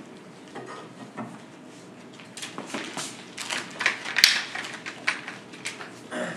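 Dry-erase marker writing on a whiteboard: a run of short scratchy strokes and squeaks, sparse at first and coming thick and fast in the second half.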